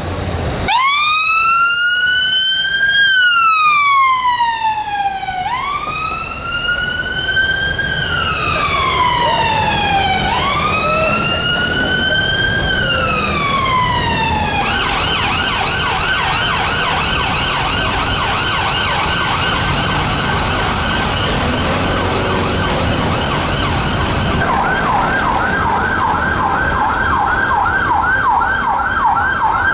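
Ambulance two-tone electronic siren, on a Mercedes-Benz London ambulance, sounding a slow wail: three long rising-and-falling sweeps. About 15 s in it switches to a fast yelp. Near the end a police car's siren takes over with a slightly slower yelp.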